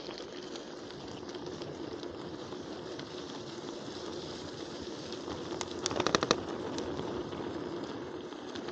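Bicycle on the move: a steady rush of tyre and wind noise, with a short run of rapid sharp clicks, about ten in half a second, about six seconds in.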